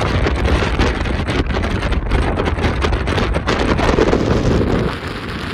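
Wind buffeting the microphone over the road noise of a car driving at speed, a steady rushing rumble with fast flutters that eases slightly near the end.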